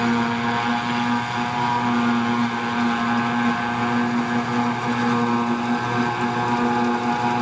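John Deere self-propelled forage harvester running steadily under load as it picks up and chops grass for silage, together with the tractor and trailer alongside, making a steady, even drone with a held pitch.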